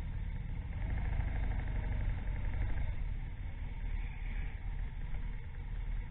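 Motorcycle engines running at low revs, a steady low rumble, as motorcycles roll slowly past close by.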